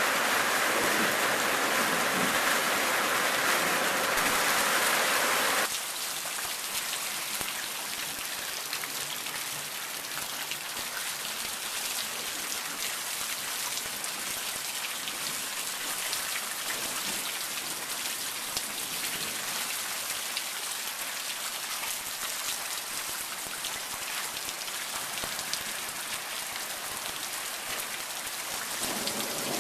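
Heavy downpour of a hailstorm, rain and hail hitting the ground: a dense steady hiss with scattered sharp ticks. About six seconds in it drops suddenly to a quieter level and stays there.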